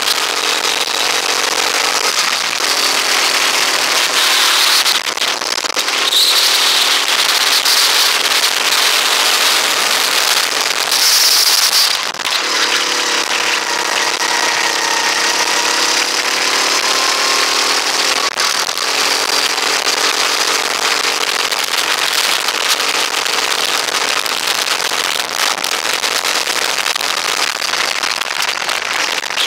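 A rental go-kart's small engine running hard on a lap. Its note drops and climbs again several times as the driver lifts off and gets back on the throttle. Heavy rushing noise from the wind over the open kart sits on top of the engine note.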